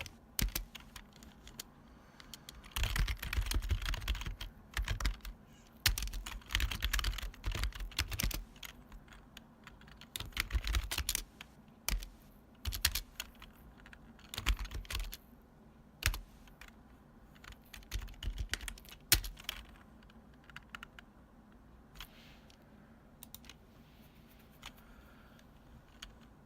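Retro long-travel computer keyboard typed on in bursts of clacky keystrokes, a second or two at a time with short pauses between. After about twenty seconds the typing thins out to a few single key presses.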